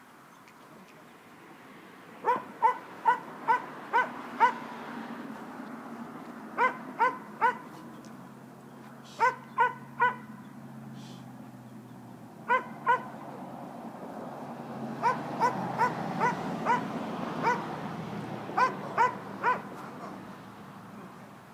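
Small dog yapping in runs of two to six quick, high-pitched barks, with pauses of a second or two between the runs.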